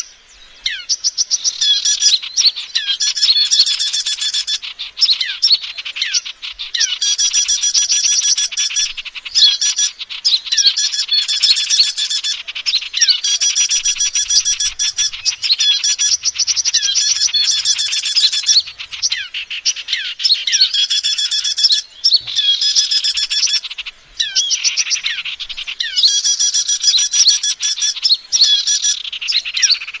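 Bird-lure recording of small songbirds: dense, high-pitched chirping and rapid twittering with repeated falling whistled notes, in phrases that repeat every couple of seconds with brief breaks. It is played to call small wild birds in to a trapper.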